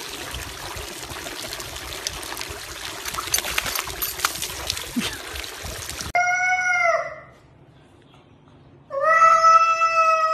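A steady rushing, crackling noise for about six seconds cuts off abruptly. A cat then gives a short meow that falls in pitch at its end, and near the end it starts a long, drawn-out meow.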